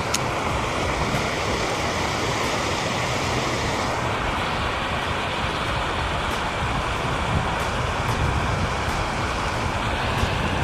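Water rushing steadily out of a drainage outflow into a pond, a constant even rush, with a few faint ticks over it.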